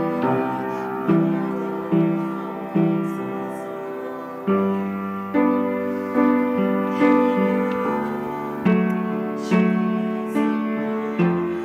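Instrumental music: a slow melody of single piano-like notes, each struck and left to ring, about one note a second.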